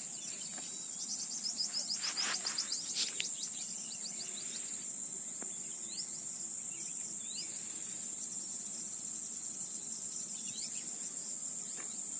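A steady, high-pitched insect chorus, with a bird giving a fast chattering trill about a second in and a few short single chirps later.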